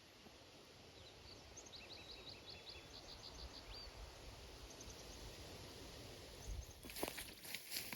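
Faint outdoor quiet with a small bird singing a quick series of high, repeated chirps in the first half. About seven seconds in, footsteps start up.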